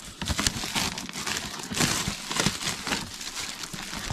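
Plastic shrink-wrap being peeled off a cardboard box and crumpled in the hands: a dense run of irregular crinkles and crackles.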